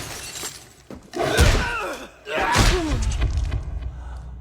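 Film fight sound effects: two heavy thuds about a second apart, each with a falling, strained cry.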